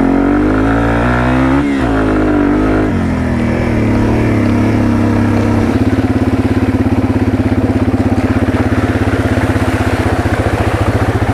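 Yamaha TW200's 196 cc single-cylinder four-stroke engine under way, revving up and down through the first few seconds, then running at a steady low throttle with an even, rapid pulse from about six seconds in.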